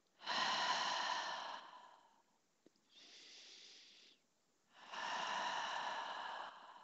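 A woman's slow, deep breaths, in and out, during a held side plank. There are three long breaths, and the middle one is quieter.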